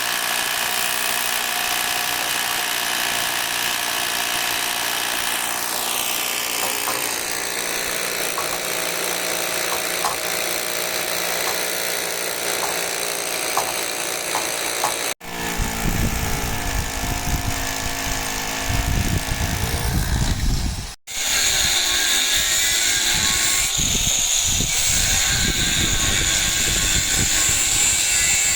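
Loud, steady running noise from power tools on a roofing job. It breaks off abruptly and restarts about 15 seconds in and again about 21 seconds in.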